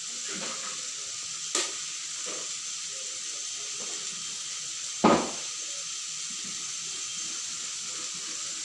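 Vegetables sautéing in butter in a pan, a steady sizzle, with two sharp knocks, the louder about five seconds in.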